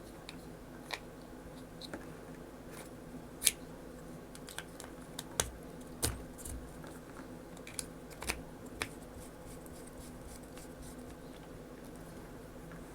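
Scattered small clicks and taps of small parts and tools being handled on a workbench, bunched in the first nine seconds with the sharpest about three and a half seconds in, over a low steady hum.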